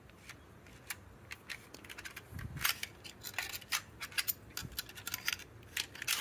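A strip of quarter-inch crown staples being pushed and seated into the magazine rail of a pneumatic brad nailer/stapler: irregular light metallic clicks and scrapes from the staples and the metal rail.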